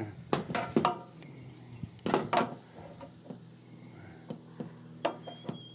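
A series of sharp knocks and clanks, about eight, from metal roofing panels being handled and fastened, over a steady low hum.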